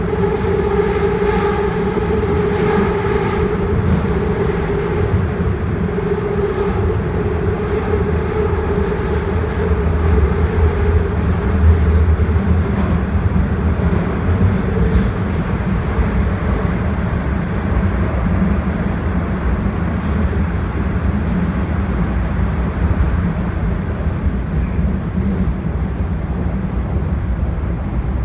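Toronto subway train, a Toronto Rocket car, running between stations, heard from inside the car: a steady, loud rumble of wheels on track. A whining tone in the first few seconds fades away.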